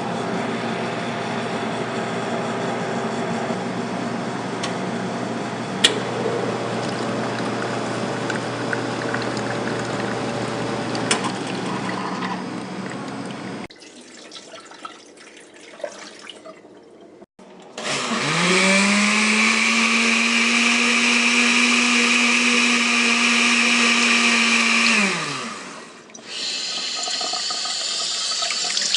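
Café background noise with a few clicks and clatter, then an electric countertop motor that spins up quickly to a steady high speed, runs for about seven seconds and winds down.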